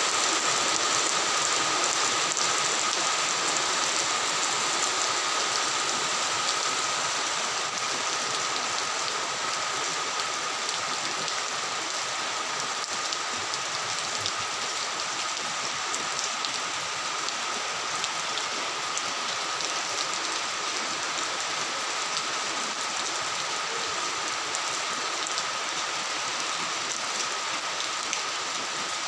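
Steady rain falling, an even hiss of drops on surfaces, easing slightly in loudness over the first few seconds. A thin, steady high tone runs underneath.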